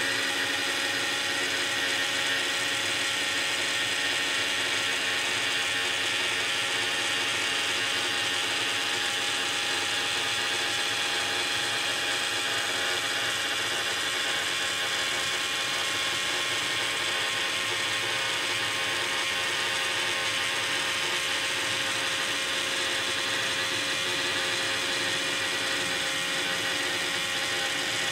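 Small geared motor of a slowly turning display turntable running steadily: a continuous mechanical whir with a few steady tones and no change in speed.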